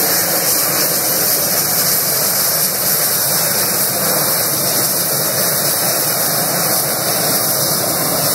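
Hot-air balloon's propane burner firing one continuous blast into the envelope during hot inflation: a loud, steady rushing sound.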